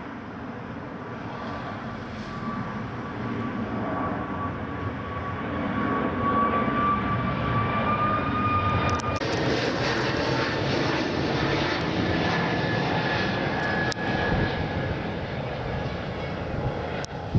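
Jet aircraft flying past low: engine noise builds over the first few seconds and stays loud, with a high, steady whine running through it.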